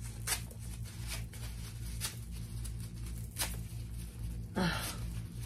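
Protective paper being pulled off a handbag's wristlet strap: scattered short crinkles and light clicks over a steady low hum, with a brief sigh-like breath near the end.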